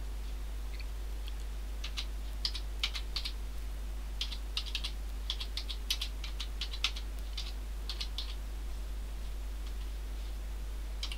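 Computer keyboard being typed on slowly and unevenly, a few keystrokes at a time with pauses between, over a steady low hum.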